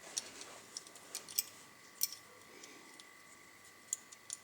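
A few faint, sharp clicks and taps, several seconds apart, from small metal parts of a dismantled angle grinder being handled.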